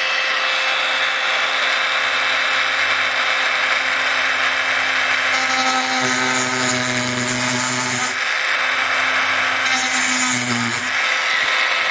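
Small handheld electric rotary tool with a fine grinding bit running at speed and cutting into a Boulle cabinet's brass inlay: a steady, loud grinding whine, its motor note shifting between about five and eleven seconds in.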